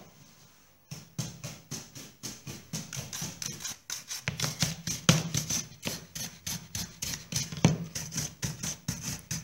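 Stiff shoe brush, dirty with shoe polish, scrubbed back and forth over a white-painted picture frame in quick rhythmic strokes, about three or four a second, starting about a second in.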